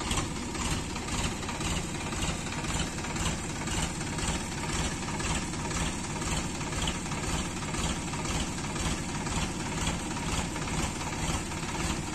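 Sonalika tractor's diesel engine idling steadily, its firing beat coming through as a regular knocking pulse.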